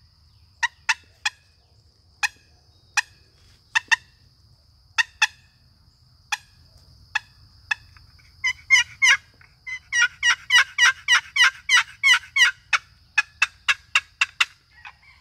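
Long box turkey call of mineralized green poplar with a walnut paddle, played upside down: a series of sharp single clucks, then about eight seconds in a quick rolling run of notes, cluck-and-purr, lasting about four seconds, then a few more clucks.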